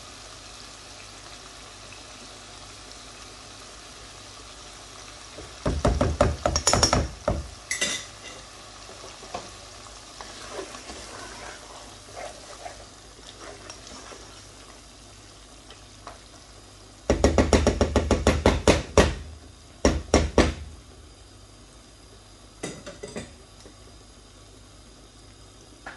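A utensil scraping and clinking against a metal karahi pan in rapid clattering bursts, about six seconds in and again from about seventeen to twenty-one seconds, with a short one near twenty-three seconds. Between them the cooked lamb karahi sizzles faintly and steadily in the pan.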